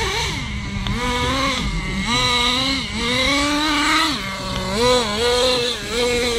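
Small high-revving Tornado S30 engine being run in, its pitch climbing and dropping again and again as the throttle is blipped, settling into a steadier, higher note near the end.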